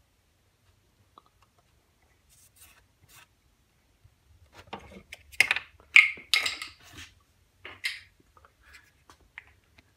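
Hands rubbing and pressing a glued paper template onto a wooden blank: paper rustling and scraping, with a cluster of sharper rustles and scrapes about halfway through.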